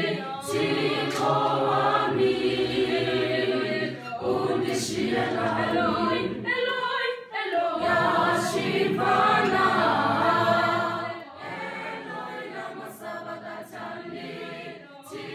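A group of students singing together a cappella in harmony, with no instruments. The singing drops to a quieter level about eleven seconds in.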